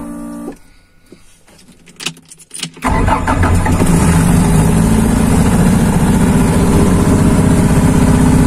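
KR2S light aircraft's engine being started, heard from inside the cockpit: a brief spell of starter cranking about two seconds in, then the engine catches and runs steadily.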